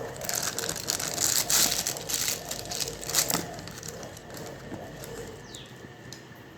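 Packaging crinkling and rustling as it is handled during an unboxing, busiest for the first three seconds or so, then dying away.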